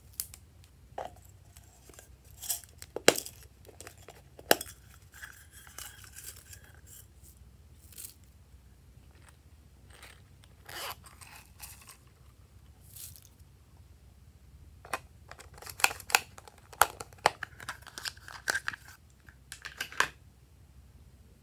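Small plastic items and packaging handled close up: crinkling, tearing and sharp plastic clicks in scattered bursts. The clicks are busiest in the last few seconds, as small plastic pearl beads are shaken out of a bottle onto the slime.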